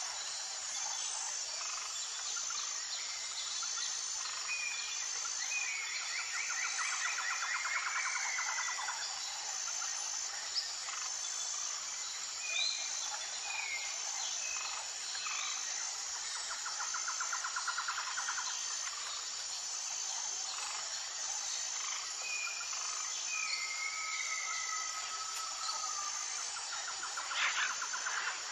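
Outdoor nature ambience: birds calling with short chirps and a few trills, over a steady, high, evenly pulsing insect chirr.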